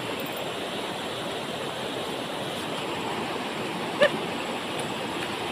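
Shallow river rushing over rocks and small rapids, a steady even hiss of flowing water, with one brief sharp sound about four seconds in.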